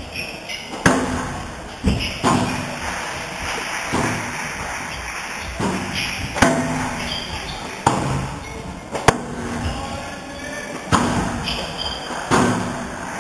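Squash rally: the ball struck by the racquets and hitting the court walls and floor, sharp impacts at an irregular pace of roughly one every second or so, each with a short ring in the hall.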